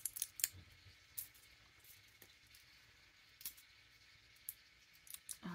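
Faint, scattered crinkles and clicks of fingers picking at the tight plastic seal on a lip crayon, trying to peel it off.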